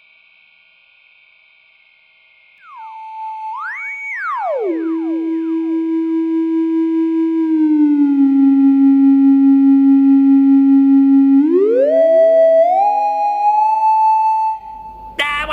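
Electronic sine-wave tones with no speech. A faint high steady tone is followed, from about two and a half seconds in, by loud pure tones that leap up and glide down to a low held note, then step slightly lower. Near the end they climb back up in several overlapping glides and stop suddenly.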